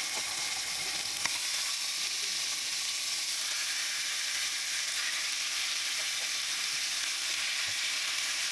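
Pork loin medallions sizzling in hot vegetable oil in a nonstick pan as they are laid in, a steady frying hiss with a faint click about a second in.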